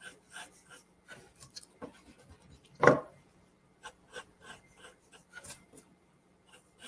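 Graphite pencil scratching on drawing paper in short, quick sketching strokes, about three a second. About three seconds in there is a single louder soft rustle.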